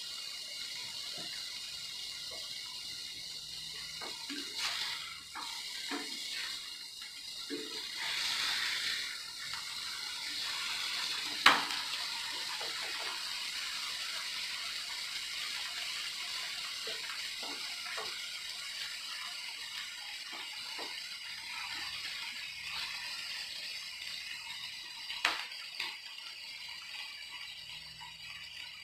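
Hamburger patties sizzling in a frying skillet, a steady hiss, with a few sharp clicks or knocks, the loudest about 11 seconds in.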